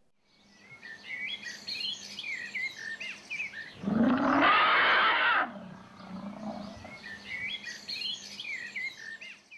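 Birds chirping with short, repeated whistles. About four seconds in, an elephant trumpets once loudly for under two seconds.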